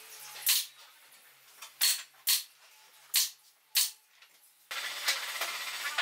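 Sharp wooden knocks and clacks as the twig roof and branch post of a small wooden bird feeder are handled and fitted together, five separate knocks over about four seconds. Near the end a steady low hum and hiss comes in.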